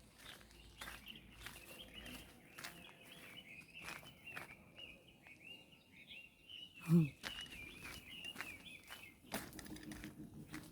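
Birds twittering in a steady stream of short, high chirps. About seven seconds in there is one brief, lower call, the loudest sound.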